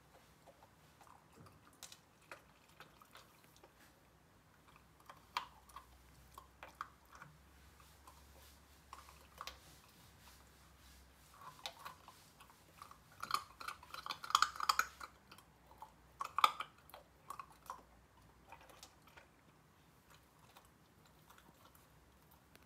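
Golden retriever puppy licking and chewing ice cubes on a wooden floor: scattered small wet clicks, with a denser run of crunching a little past the middle.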